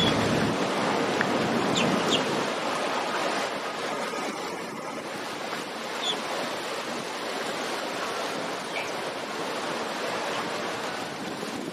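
Steady wash of choppy river water, churned by the wakes of passing boats.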